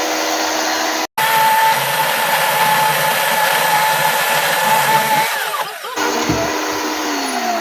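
Small battery-powered chainsaw running and cutting into wood, a steady motor whine with the chain's rasp. Near the end the motor winds down, its pitch falling.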